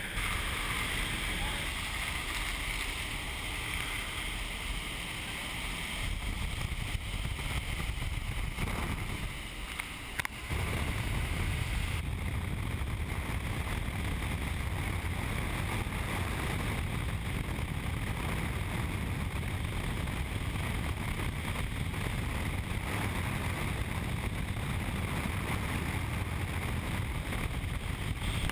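Steady rush of an indoor vertical wind tunnel's airflow buffeting a camera microphone worn by a flyer inside the flight chamber. The noise dips briefly about nine to ten seconds in, then comes back with more low rumble.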